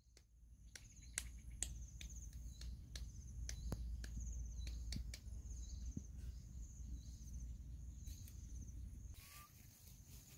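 Faint insects chirping in a steady, high pulsing trill, with scattered light clicks and a low rumble underneath.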